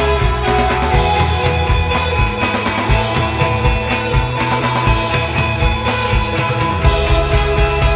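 Background music with a steady beat and sustained instrument tones.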